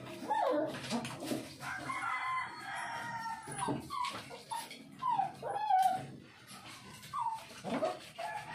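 A run of high-pitched animal calls: short sliding whines and yelps, with longer drawn-out calls early on and again near the end.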